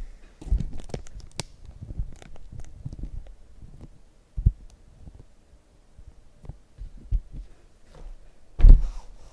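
Cardboard hobby boxes being handled on a table: a series of soft thumps and light taps, with a sharper knock midway and the loudest thump near the end as hands take hold of the stack.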